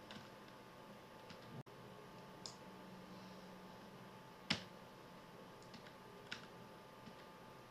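Scattered single clicks of a computer keyboard and mouse, a handful in all, the loudest about four and a half seconds in, over a faint steady electrical hum.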